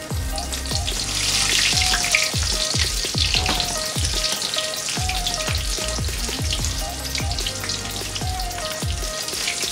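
Breaded shrimp frying in a shallow pan of hot oil: steady sizzling and crackling, loudest from about a second in. Background music with a steady beat plays underneath.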